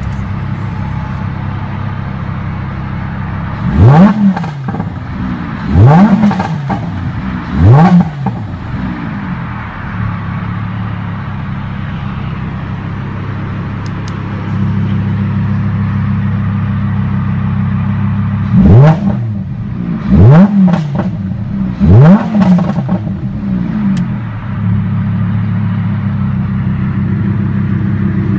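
Lamborghini Huracán LP610-4's 5.2-litre naturally aspirated V10 idling in park and blipped three times in quick succession in Strada mode, each rev shooting up and falling straight back. About halfway through it is switched to Sport mode, the idle gets louder, and it is blipped three more times. Heard from the driver's seat.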